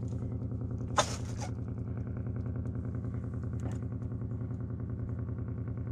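A small boat engine idling steadily with an even, fast pulse, and a single sharp click about a second in.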